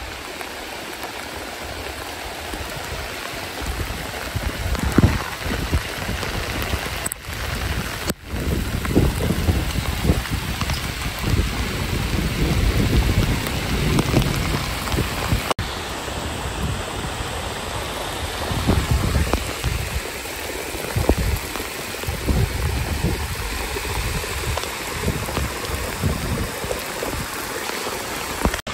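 Heavy rain pouring down steadily, with uneven gusts of wind rumbling on the microphone.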